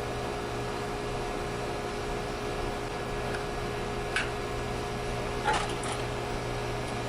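Steady low mechanical hum, with a couple of faint clicks about four and five and a half seconds in.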